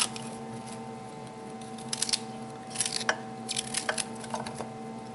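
Small kitchen knife cutting florets off a raw broccoli crown, in short crisp cuts in a few clusters, over a steady background hum.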